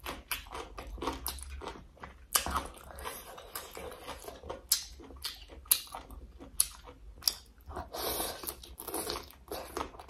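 A person chewing a mouthful of papaya salad with squid, shrimp and crab: wet mouth sounds with many irregular crisp crunches and clicks.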